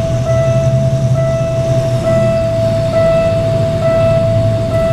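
Level-crossing warning signal sounding: a steady electronic tone that repeats in a two-note pattern about once a second. Under it is the low rumble of the approaching GE diesel locomotive hauling a freight train.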